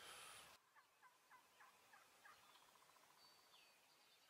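Wild turkeys calling faintly in the distance: a run of about seven short, evenly spaced notes, then a brief rapid rattle.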